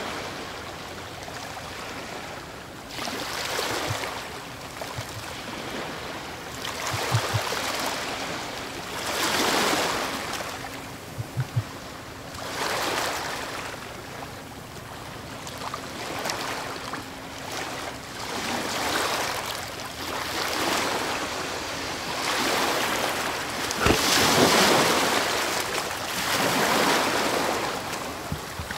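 Underwater water noise picked up by a camera on a speargun: rushing water that swells every two to three seconds. A faint steady hum runs under it until about three-quarters of the way through, and there are a few soft low knocks.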